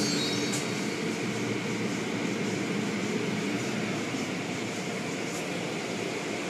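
Automatic car wash running: spinning cloth brushes and water spray make a steady rushing noise with a low rumble.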